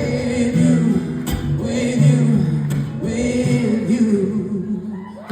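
Live acoustic guitar strumming with voices singing a song's final refrain, dying away about five seconds in.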